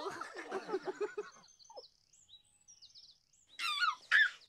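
Birds chirping, high short falling notes repeated, with a baby giggling twice near the end. In the first second and a half a voice trails off in short pulses, like a giggle.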